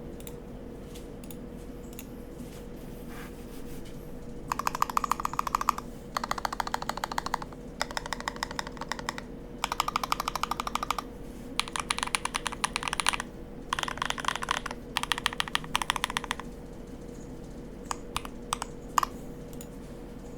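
Mechanical keyboard typing on lubed Aflion Blush linear switches in an Idobao ID42 with an integrated aluminium plate, case foam and GMK keycaps. A few scattered keystrokes, then fast runs of typing in bursts of a second or so with short pauses, then a few single keystrokes near the end, over a faint steady hum.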